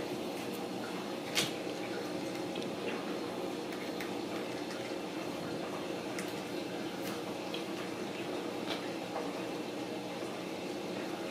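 Steady low room hum with scattered light clicks and taps from kittens playing, their paws and claws on a tile floor and a cardboard scratcher.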